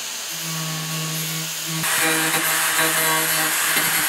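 Angle grinder with a sanding disc grinding damaged fibreglass off a kayak hull. A steady motor whine sits under a rasping grind, and the grind gets louder about two seconds in.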